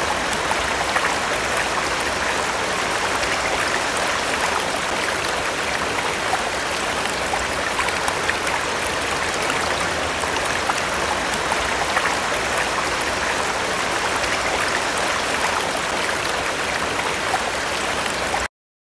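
Recorded running water, a steady rushing that cuts off abruptly near the end.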